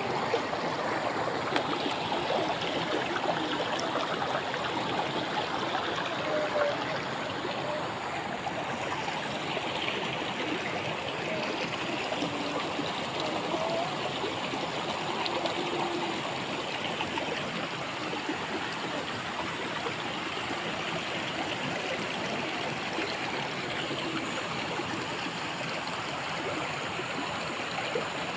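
A three-tier waterfall and its stream rushing steadily into a pool.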